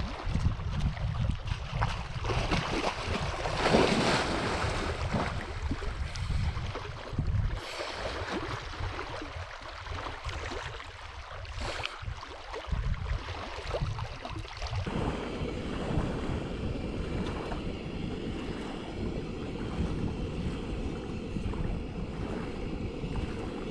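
Wind buffeting the microphone over lapping, splashing water around a canoe on a lake. About fifteen seconds in, the sound turns into a steadier rush.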